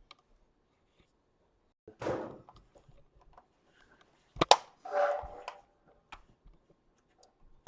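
Handling sounds from an electric stove being tested: a rustle about two seconds in, a sharp click about halfway through (the loudest sound), then a short scraping sound.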